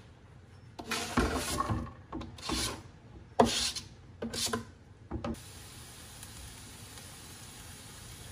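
Shredded cabbage and carrot being stirred in a nonstick frying pan with a spatula: several short scraping, rustling strokes. From about five seconds in, a steady frying hiss as the vegetables sauté.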